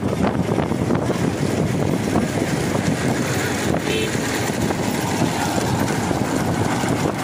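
Steady wind buffeting the microphone, a dense low rumble with little change in level.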